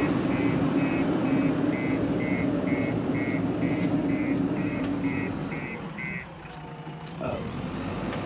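JCB 4DX backhoe loader's diesel engine running as it backs away with a loaded front bucket, its reversing alarm beeping about two times a second. The beeping stops about six seconds in and the engine briefly drops quieter before picking up again.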